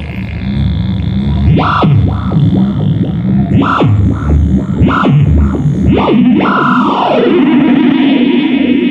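Noise from a guitar effects pedal through an amp: an oscillating tone swooping up and down in pitch several times as a knob is turned, then falling in one long glide about two-thirds in and settling into a steady drone.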